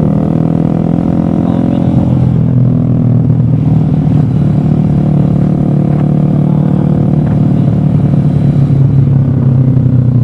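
A motor vehicle's engine running loud and steady at a constant speed, with no change in pitch.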